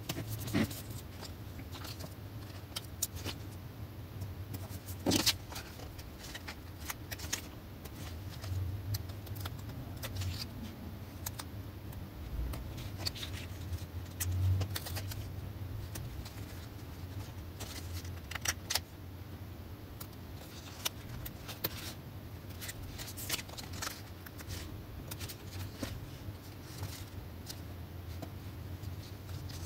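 Stickers being peeled from sticker sheets and pressed onto a planner page with metal tweezers: irregular small clicks, taps and paper rustles over a low steady hum.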